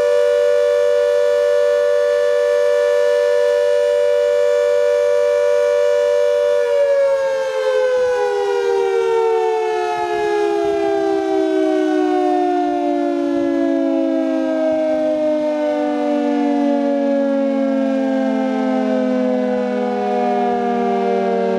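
Industrial air-raid siren sounding two close tones held steady, then, about seven seconds in, winding down with its pitch falling slowly and smoothly through the rest.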